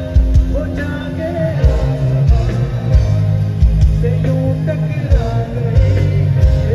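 A live band playing through a PA system: keyboard, drums and bass with a steady beat, and a man singing at the keyboard.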